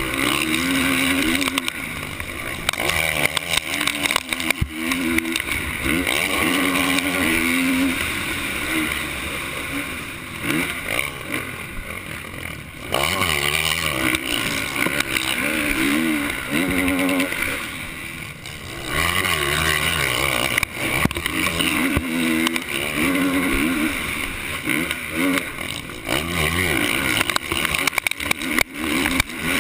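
Motocross race bike in the 450 class, heard up close from onboard, its engine revving hard and falling off again and again as the throttle is opened and rolled off. The pitch climbs and drops in quick surges, with a couple of longer easings of the throttle, once about ten seconds in and again around seventeen seconds.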